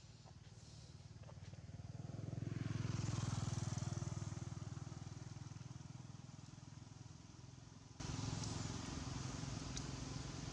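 Engine hum of a passing motor vehicle on the road, swelling over the first few seconds and fading away. After a sudden change about 8 seconds in, a steady engine hum carries on, with a few faint clicks.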